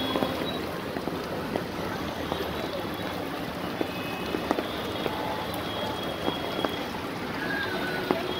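Rain and traffic on a flooded street: a steady wash of rain and moving water, with vehicles running through the standing water and scattered drip-like clicks.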